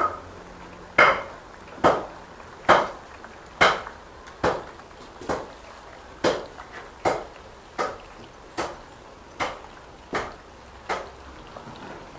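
A steady run of about fourteen sharp knocks from a kitchen utensil, roughly one a second, each with a short ring. The first few are the loudest and the rest are softer.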